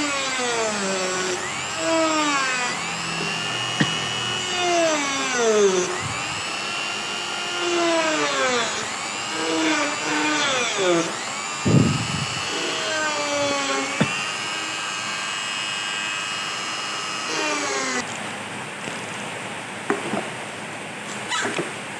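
A mini rotary tool on a flexible shaft spins a small cutting disc through a thin board, cutting out a circle. Its whine keeps rising and falling in pitch as the disc bites and eases, and it stops about eighteen seconds in.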